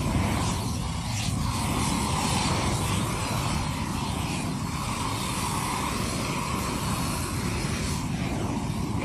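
A motor or small engine running steadily with a continuous rushing noise.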